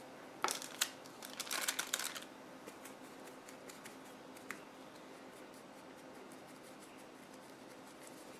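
Stiff paintbrush bristles scratching and tapping in quick dry-brushing strokes for the first two seconds or so, with one more tap a little after four seconds, then only faint light brushing.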